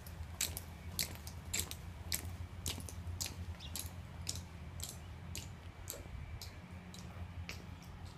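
Honor guard's dress shoes striking a concrete floor as they march in step, a sharp footfall about twice a second.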